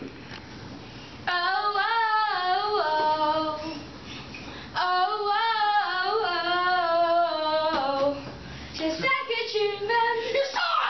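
A child singing unaccompanied in three short phrases of held, wavering notes, with brief pauses between them.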